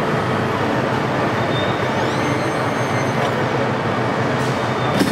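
Steady rumble of vehicle engines and traffic. About two seconds in, a brief whine rises and then holds for about a second, and a sharp knock comes near the end.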